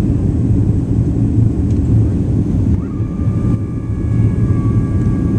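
Steady low rumble of a Southwest Boeing 737's cabin noise on the descent to land. About three seconds in, a thin steady high whine joins it and holds.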